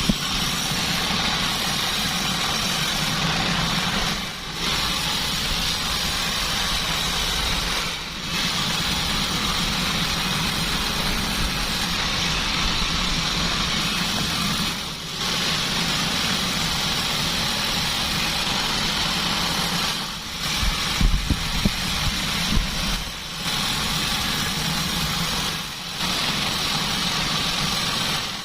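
Band sawmill running steadily, its noise dipping briefly every few seconds, with a few sharp knocks about twenty-one seconds in.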